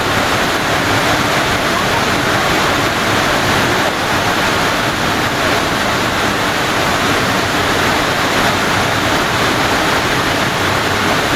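Steady roar of a large waterfall plunging about 150 feet, an even rushing noise that does not change.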